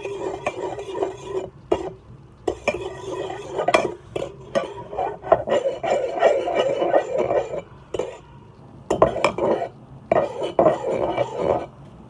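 A utensil stirring and scraping through a thick soap-and-water slime mixture in a bowl, with clinks against the side, in bouts with two short pauses.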